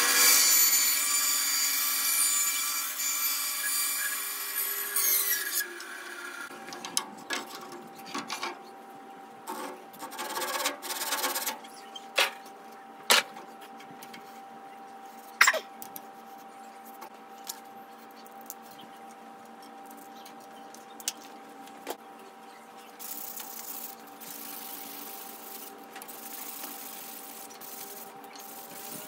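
A bandsaw rips a narrow wood strip against its fence for about five seconds with a loud whine. The machine then keeps running with a steady hum. Meanwhile a hand saw cuts the strip in a few short strokes, a few sharp knocks follow, and near the end the strip is rubbed clean of sawdust.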